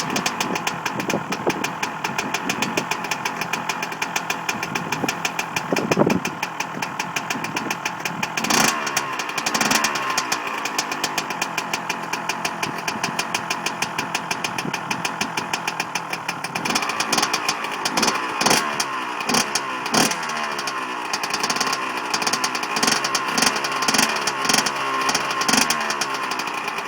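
Two-stroke motocross bike engine running just after a rebuild, idling with a rapid, even beat. Several short blips of the throttle break in, a cluster of them in the second half.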